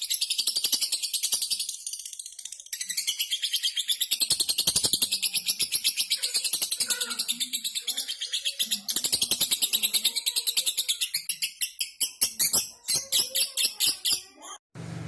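Lovebird in full song: a long, fast run of high chattering chirps, several a second, with a brief dip about two seconds in and slower, separate notes near the end. It cuts off abruptly just before the end, where a low, steady hum takes over.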